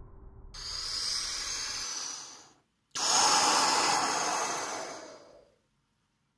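Two long, breathy exhalations, each starting suddenly and fading away over about two seconds, the second a little louder.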